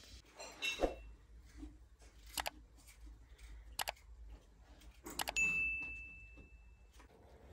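Subscribe-button sound effects: sharp mouse-like clicks, then a bell ding about five seconds in that rings on at one pitch for over a second. A metallic clink with a short ring comes under a second in.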